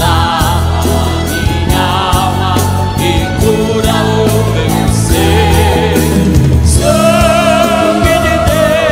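Gospel song: a vocal group singing over a band with a steady drum beat. From about seven seconds in, the voices hold long notes with vibrato.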